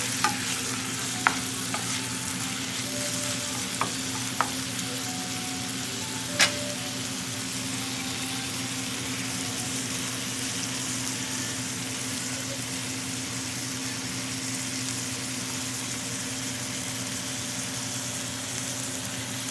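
Food sizzling as it fries in a pan: a steady crackling hiss with a few sharp pops, the loudest about six seconds in, over a steady low hum.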